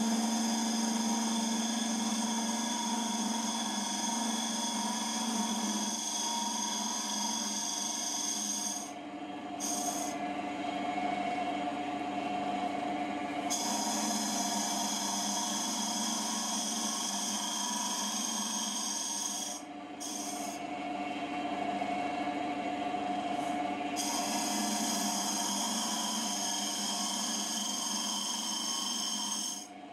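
JIB W0903X wood lathe running while a cutter held in a homemade turning jig scrapes out the inside of a spinning wooden bowl, giving a steady hum with a scraping, shaving noise over it. The cutting noise drops away briefly a couple of times.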